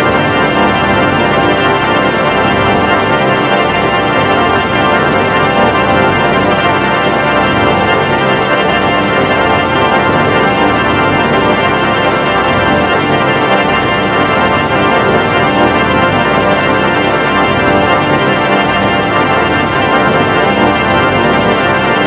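A loud, steady electronic drone of many held tones together, like a sustained organ chord, that never changes.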